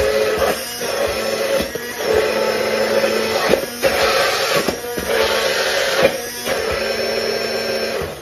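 Electric hand blender running in a tall beaker, puréeing onion and green chillies into a paste. The motor drops out briefly about four times as it is pulsed, and it stops right at the end.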